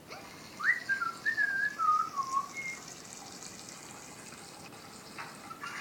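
A short run of whistled notes, stepping mostly downward in pitch, with a steady hiss underneath.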